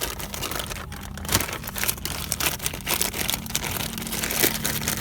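Plastic packaging crinkling and rustling as it is handled, with scattered irregular clicks and taps.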